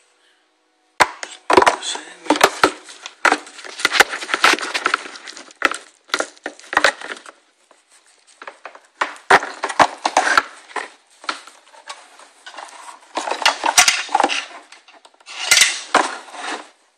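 Clear plastic wrap crinkling and crackling right at the microphone, in irregular bursts full of sharp clicks, with a couple of short lulls.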